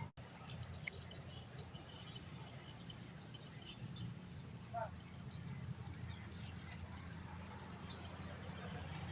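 Outdoor insect chorus: a steady high drone of crickets or cicadas, with short high chirps repeating over a low steady background rumble.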